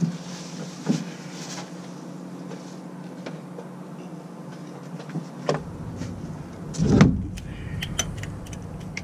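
Handling noises from work in a truck's engine bay: scattered light clicks and knocks, with a louder thump about seven seconds in, over a steady low hum.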